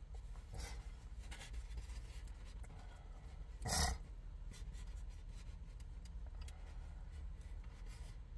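Eating sounds: a plastic fork scraping and rubbing in a styrofoam takeout container, over a low steady hum. A short, loud, noisy burst comes about four seconds in.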